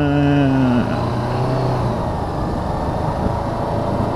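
Motorcycle engine running under way. Its pitched note holds and then falls away about a second in, leaving steady wind and road noise.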